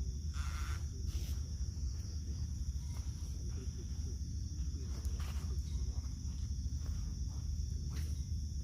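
A steady high-pitched chorus of night insects, over a constant low rumble, with a few brief rustles or knocks, one about a second in and others later.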